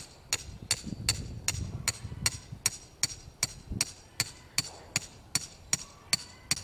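Hammer striking the top of a steel rebar stake in a steady run of sharp metallic blows, nearly three a second, driving it into hard clay soil to make a hole.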